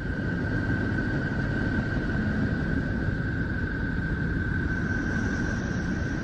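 Sonified space-probe recording of a planet's electromagnetic emissions: a steady low rumble with a single high tone held steadily above it.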